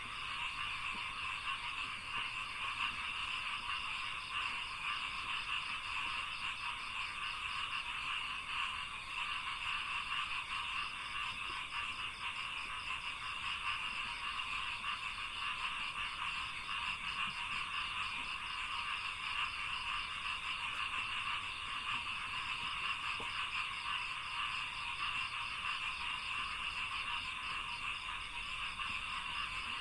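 Dense, steady chorus of many frogs croaking in a rice paddy, with a fast pulsing higher trill running through it.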